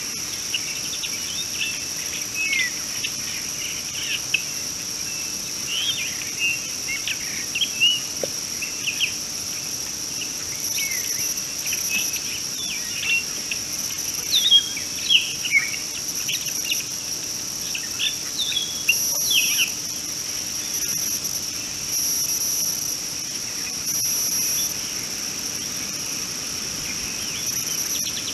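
A steady, high-pitched drone of insects, with a second, higher insect buzz switching on and off several times in the second half. Many short bird chirps and calls are scattered over it, busiest in the first twenty seconds.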